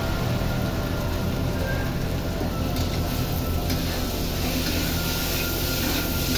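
Metal spatula stirring and scraping chickpeas frying in a metal pan, under background music.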